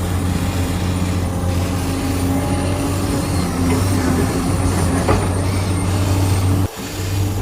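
Electric motors of a radio-controlled model construction vehicle running steadily, with a brief cut-out about a second before the end.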